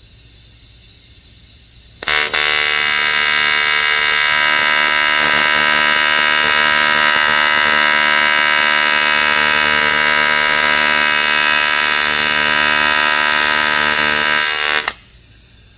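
Pedal-controlled TIG welding arc laying a tack weld on thick material at around 190 amps, giving a loud, steady buzz. It starts about two seconds in and cuts off sharply near the end.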